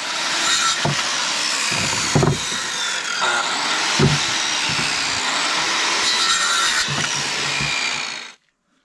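Corded circular saw cutting through moose ribs, meat and bone. Its motor whine falls and rises in pitch as the blade bites, with several knocks, and the sound cuts off suddenly near the end.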